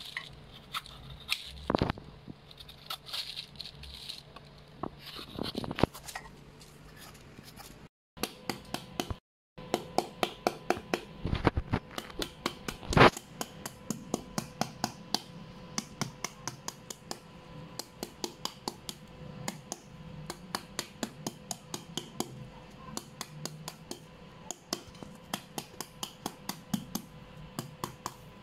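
A knife scraping the skin off a green papaya in short strokes. After a short silence, a large knife chops rapidly into the peeled papaya's flesh in a steady run of sharp taps, about three to four a second. This is the Thai way of scoring it into shreds for som tum.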